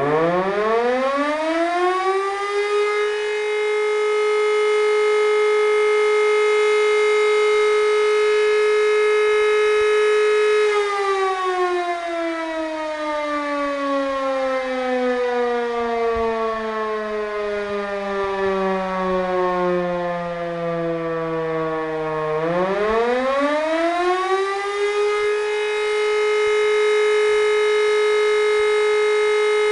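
E57 electromechanical siren sounding the fire-alarm signal as a test. It spins up to a steady tone, holds it for about ten seconds, winds down in a long falling slide, then spins back up to the steady tone a little over twenty seconds in.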